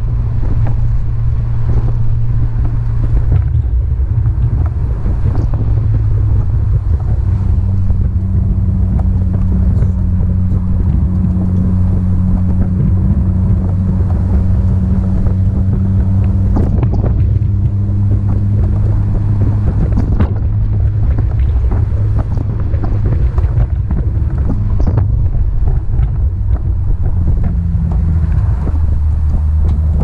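Honda S2000 roadster's four-cylinder engine running as it drives along with the top down, mixed with wind and road noise coming into the open cabin. The engine note shifts somewhat in pitch partway through.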